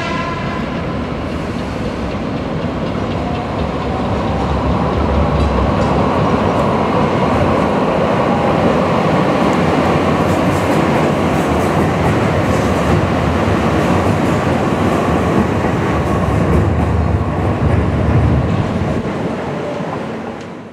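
Light rail train and PCC streetcar rolling past on street track: a steady rumble of steel wheels on rail with a faint steady whine, swelling in the middle and dying away near the end.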